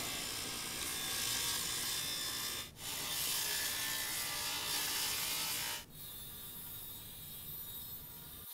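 Craftsman table saw blade ripping a wooden board, a steady loud cutting noise with a short break about a third of the way in. About six seconds in it drops suddenly to a much quieter steady running sound.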